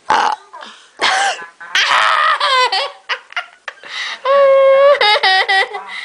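A boy laughing hard in high-pitched bursts. It starts with short noisy bursts, then about four seconds in there is a long held squeal that breaks into rapid ha-ha pulses.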